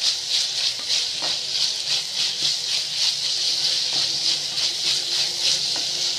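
Onions, green chillies and ginger-garlic paste sizzling in hot oil in a clay pot, stirred with a wooden spatula that scrapes the pot now and then. This is the sauté stage, frying until the raw smell of the ginger-garlic is gone.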